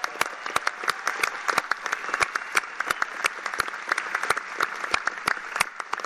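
Large crowd applauding steadily, with many individual sharp claps standing out.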